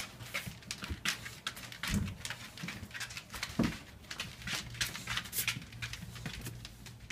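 English Bulldog puppy moving about: a string of irregular scratchy clicks and rustles, with two soft thumps, about two seconds in and again a little later, over a faint steady low hum.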